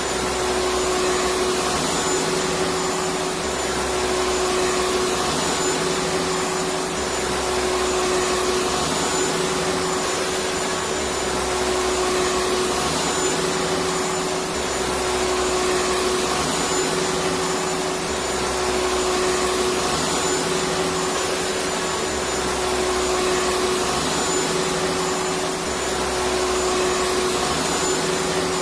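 Electric vacuum cleaner running continuously: an even rushing motor noise with a steady whine in it, and a low rumble that swells and fades every couple of seconds.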